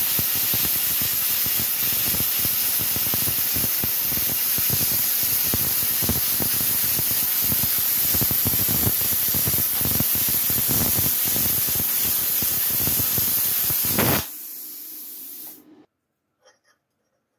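Plasma cutter cutting through steel plate: a loud, steady hiss with a fine crackle while the arc runs. About 14 seconds in the cutting stops and a quieter hiss carries on for about a second and a half before it cuts off.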